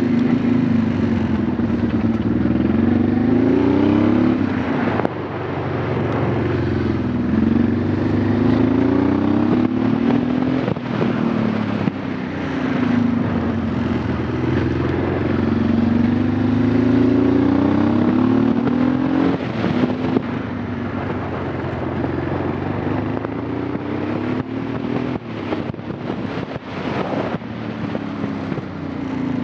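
Honda Transalp V-twin motorcycle engine running, its note rising in pitch and dropping back again and again every couple of seconds.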